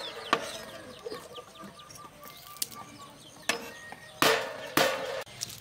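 A cleaver chops garlic on a wooden cutting board in a few heavy knocks: one just after the start, then three in quick succession near the end. Chickens cluck faintly in the background.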